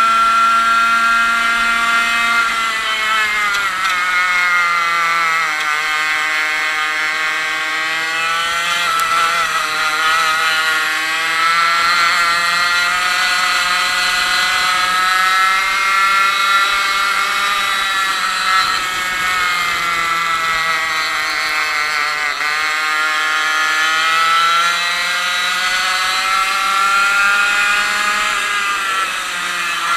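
A 100cc two-stroke kart engine running at racing speed, heard onboard: its pitch drops several times as the driver lifts for corners and climbs again as it accelerates out, with the deepest drop about two-thirds of the way through.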